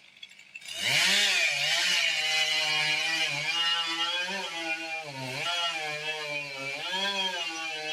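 Chainsaw starts running about a second in and keeps going, its engine pitch dipping and rising as it is throttled.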